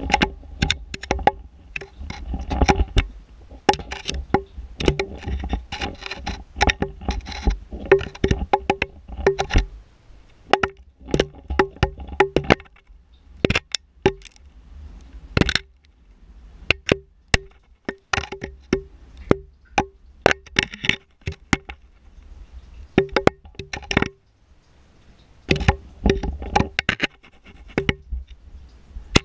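Irregular clicks and knocks echoing in a rock-walled well shaft, many with a short ringing note at one pitch. A low rumble runs under them for the first ten seconds or so and comes back briefly later.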